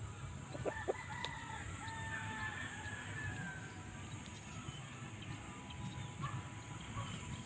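Two short clucks, then a rooster crowing once: a long call starting about a second in and lasting about two seconds.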